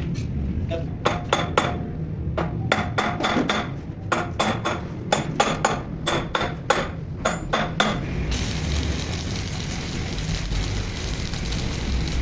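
Repeated hammer blows ringing on steel, a few strikes a second at an uneven pace. After about eight seconds the blows stop and a steady hiss takes over.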